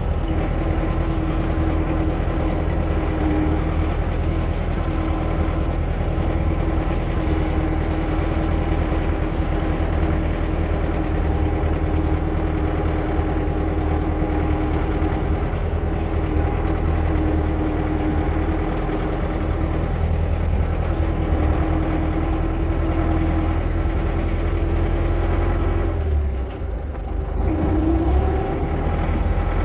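A machine running steadily with an even hum. It dips briefly near the end and then rises in pitch for a moment.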